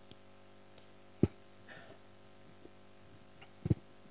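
Quiet room tone with a faint steady electrical hum, broken by two short dull thuds, one about a second in and one near the end.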